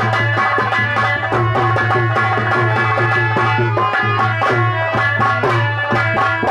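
Nautanki stage music: a hand drum played in fast, dense strokes over sustained held melody notes, stopping just at the end.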